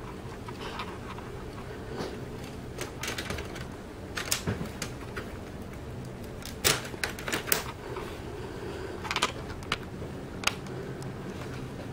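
Plastic LEGO parts clicking and clattering as they are handled and set down, in scattered clusters of sharp clicks. The loudest cluster comes a little past halfway. A steady low hum runs underneath.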